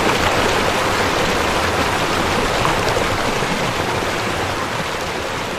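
River water rushing steadily, an even hiss of flowing water that slowly fades away in the second half.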